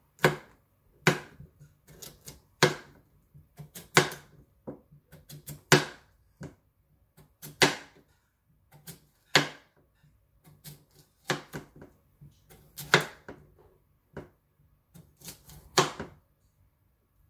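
Knife slicing an English cucumber on a cutting board: sharp knocks of the blade hitting the board, a loud one about every one to two seconds with lighter taps between.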